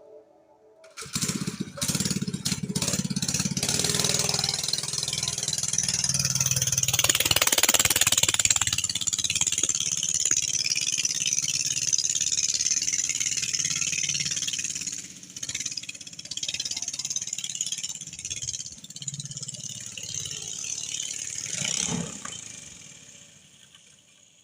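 Small single-cylinder 3.5 hp Briggs & Stratton lawn mower engine powering a four-wheeler, running under throttle with rattling as the quad is ridden. It picks up about a second in, is loudest for the first half, then rises and falls unevenly and fades out near the end.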